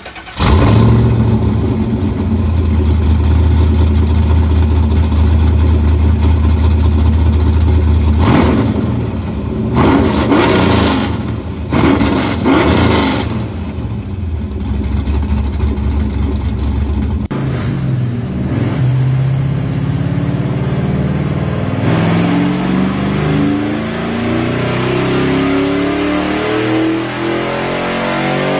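Infiniti G35 coupe's V6 idling with a steady low note, blipped three times a little under halfway through. Then, after a cut, it pulls steadily up through the revs at full throttle on a chassis dynamometer.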